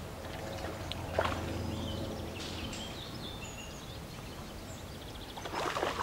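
Quiet outdoor lakeside ambience: a steady low background noise with faint bird chirps around the middle.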